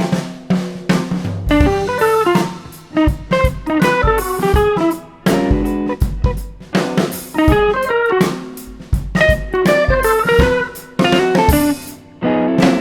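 Background music: plucked guitar melody over a drum kit with a steady beat.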